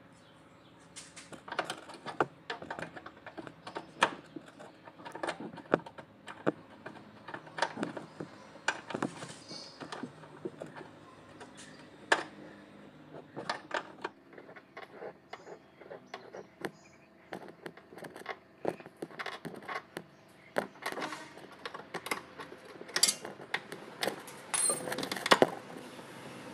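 A small steel spanner clicking and clinking against the brake line fitting and its bracket under the car as the rear brake hose joint is worked loose. The metal clicks come irregularly, a few louder ones near the end.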